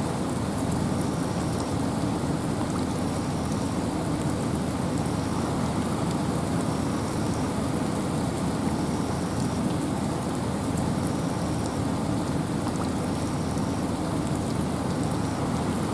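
Steady rain and wind in a forest: an even rushing hiss, heaviest in the low range, with no break or change.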